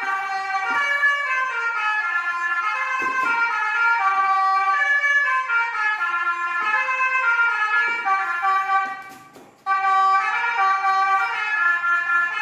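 Basuri telolet horn, a multi-tone electric melody horn of the kind fitted to Indonesian buses and trucks, playing a tune note by note. It fades away briefly about nine seconds in, then starts again at full loudness.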